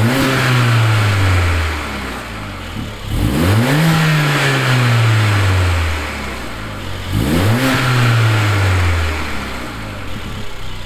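Mercedes-AMG CLA45's 2.0-litre turbocharged four-cylinder, with a K&N drop-in air filter fitted, revved three times while stationary: each blip rises sharply, then falls slowly back toward idle over about two seconds.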